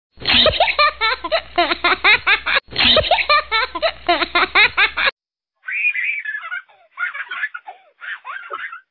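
Loud laughter, a short laughing clip that plays twice in a row and cuts off about five seconds in. Fainter, higher laughing sounds follow in short spurts.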